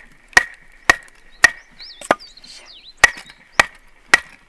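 Wooden baton striking the spine of a Japanese nata axe to drive it through a split of softwood firewood: seven sharp knocks about two a second, each with a brief metallic ring, with a short pause midway.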